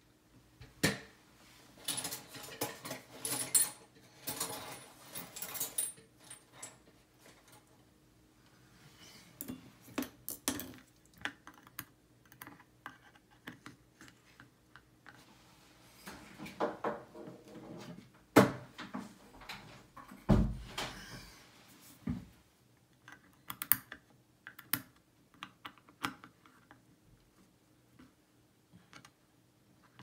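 Irregular small metal clicks and clinks of steel tweezers and lock parts being handled, thickest in the first few seconds, with a single dull thump about two-thirds of the way through.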